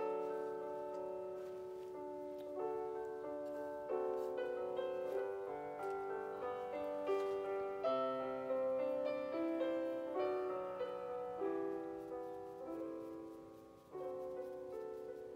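Background instrumental music: a gentle melody of struck notes that ring and fade, with chords beneath.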